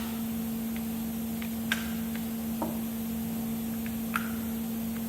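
A few sharp metallic clicks as sockets are handled on impact wrench anvils: one about a third of the way in, another near the end, with fainter ticks between. A steady low hum runs underneath.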